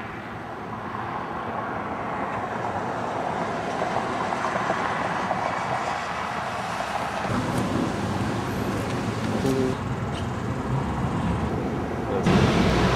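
Steady road-traffic noise that slowly builds, with a heavier low engine rumble joining about seven seconds in and a louder surge near the end.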